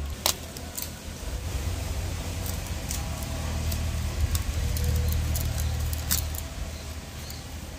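Fresh snakehead fish being cut into small pieces with a blade: a scatter of sharp clicks and clinks, the loudest near the start and about six seconds in, over a steady low rumble.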